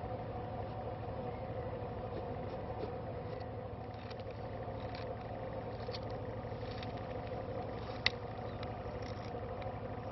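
Steady low engine drone that holds the same pitch and loudness throughout, with a few faint light ticks and one sharp click about eight seconds in.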